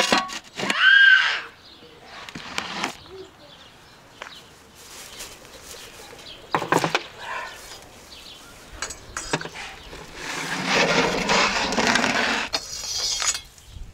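Metal lid clinking and scraping onto the rim of a large metal pan. Near the end comes a longer rough scrape as the pan is pushed across the brick oven floor with a metal tool.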